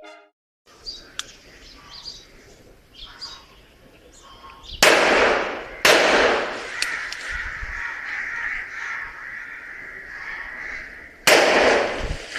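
Three gunshots from a .32 revolver firing S&W Long lead-tip rounds: two about a second apart around five seconds in, and a third near the end, each trailing off in an echo. Birds call faintly in the background.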